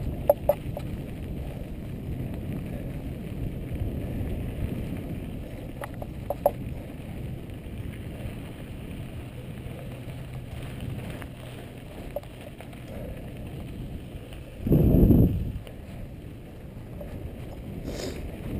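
Mountain bike rolling down a dirt singletrack, heard from a helmet camera: a steady low rumble of tyres on dirt and wind on the microphone, with a few sharp clicks and rattles from the bike. About fifteen seconds in there is a brief, much louder rumble.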